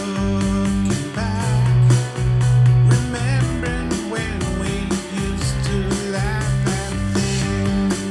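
Music played back through JBL LSR305 studio monitors: a track with held bass notes and a wavering melody line above them.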